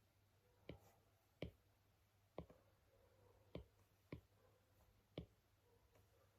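Faint, sharp taps or clicks, six of them at uneven intervals, over a quiet low hum.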